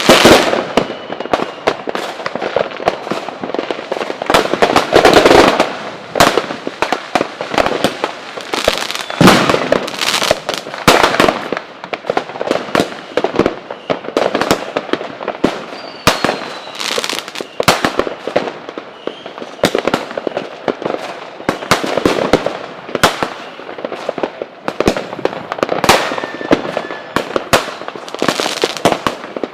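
Fireworks going off in dense, irregular volleys: many sharp bangs close together, with crackling between them and a few faint whistles.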